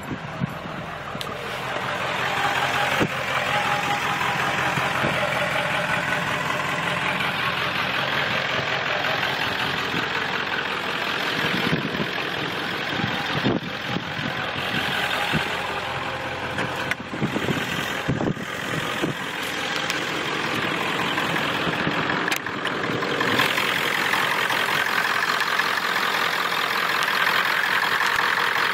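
1997 Ford F-250's 7.3-litre Power Stroke turbo-diesel V8 running, its turbocharger whistling, building up over the first couple of seconds. A few short sharp clicks sound now and then.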